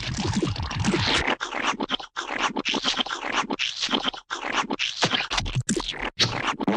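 Wet, gooey squelching and splatting of slime, a dense run of short sticky squishes, several a second, broken by brief gaps.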